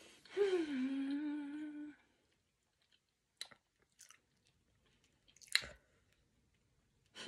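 A woman humming one long closed-mouth "mmm" with her mouth full of food, then chewing quietly with a few soft mouth clicks and smacks.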